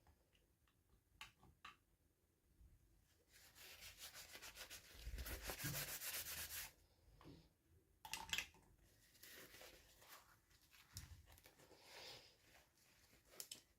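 Hands rubbing and scraping on toy packaging, with a few light clicks. A stretch of rubbing a few seconds in lasts about three seconds, then comes a sharp click and more intermittent scratching.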